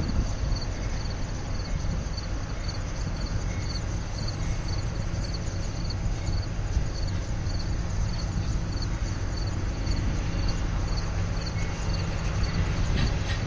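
Union Pacific diesel-electric locomotives working around a curve, a steady low engine drone that grows a little louder near the end as they approach. An insect chirps at a steady rhythm over it.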